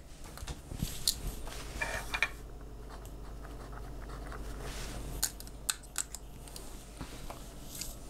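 A pen writing on paper, with a few light clicks and taps of small objects handled on a table over a steady low hum.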